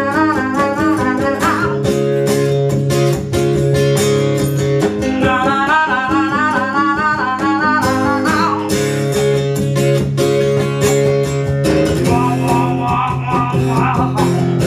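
Live acoustic country-blues band: a woman singing with a wide vibrato over a strummed acoustic guitar and hand-slapped cajón beats. Her sung lines come in phrases, with guitar and drum carrying on between them.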